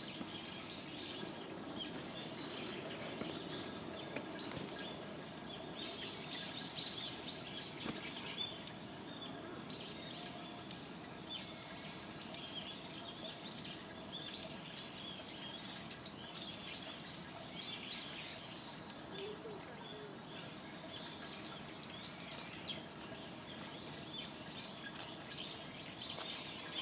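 Small birds chirping in irregular bursts throughout, over a low steady background noise.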